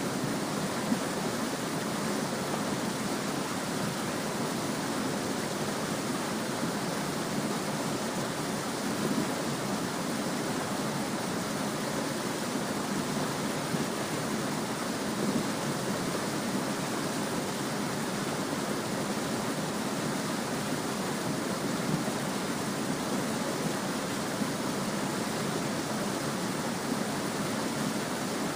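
Small stream babbling and gurgling over stones, a steady even rush of flowing water with tiny splashes here and there.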